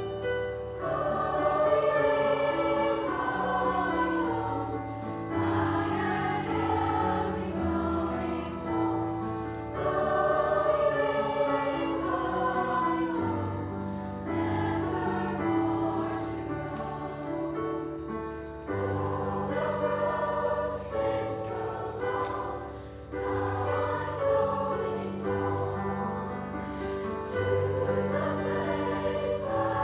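Student choir singing with piano accompaniment, sustained chords under the voices.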